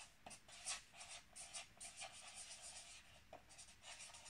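Whiteboard marker writing on a whiteboard: a faint, quick run of short pen strokes as a word is written out.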